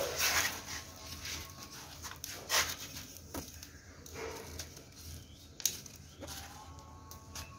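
Dry dirt clods crumbled by hand: gritty crunching and a soft hiss of falling dust, in bursts that are strongest at the start and about two and a half seconds in, with a sharp crack about five and a half seconds in.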